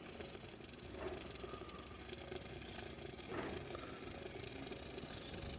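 Motor oil being poured from a bottle into the engine's oil filler, a faint steady pour with two slightly louder moments, about a second in and a little after three seconds.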